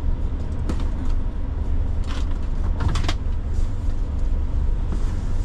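Steady low engine rumble on a ferry car deck, heard from inside a van's cab, with a few short rattles and clicks about two and three seconds in.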